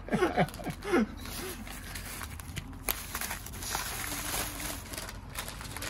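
Rustling and handling of food packaging as a pack of manju is opened, a run of small irregular crinkles and knocks, with a brief voice in the first second.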